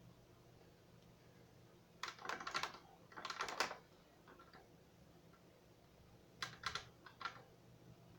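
Computer keyboard keys clicking in short bursts: two quick runs of keystrokes about two seconds in and another run past the middle, over a faint steady low hum.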